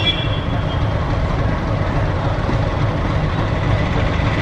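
X-class metre-gauge steam locomotive moving slowly, a steady hiss of escaping steam over the low rumble of the engine. A brief high tone fades out about half a second in.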